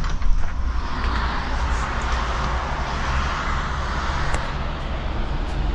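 Steady rushing of wind and rain outdoors, with a low wind rumble on the microphone.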